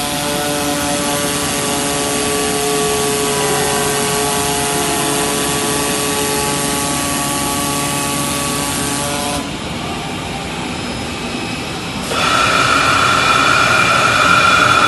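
Digital foam and insulation cutting machine running: a steady mechanical whine made of several held tones. It drops off about nine and a half seconds in, then comes back louder with a higher whine about twelve seconds in.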